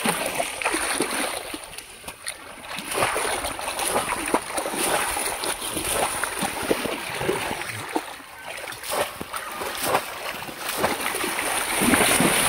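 Irregular, repeated splashing of shallow river water as a woven-bamboo polo fish trap is plunged down and lifted again and again, with the loudest splashes near the end.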